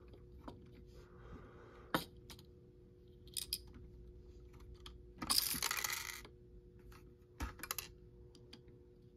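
Plastic Lego Technic parts of a toy garbage truck clicking and knocking as the front loader arm is fitted with its recycling bin and lifted. About five seconds in comes a rattle lasting about a second, like the bin's small round plastic pieces clattering, and there are a few more sharp clicks near the end.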